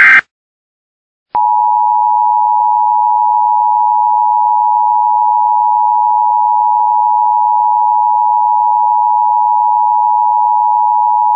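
Emergency Alert System broadcast: the last moment of a loud SAME header data burst, about a second of silence, then the EAS two-tone attention signal (853 and 960 Hz together) starting with a click and holding loud and steady.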